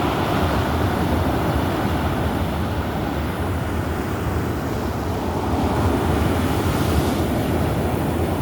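Rough, storm-driven sea surf: a continuous rumble of waves with wind buffeting the microphone, swelling as a wave breaks and hisses about six to seven seconds in.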